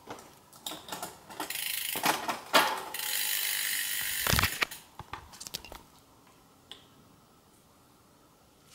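Road bike drivetrain being shifted into its top gear: clicks of the shift lever, then a ratcheting whir of the chain running through the rear derailleur and over the cassette as the cranks are turned, with a dull knock about four seconds in. It falls quiet after about six seconds.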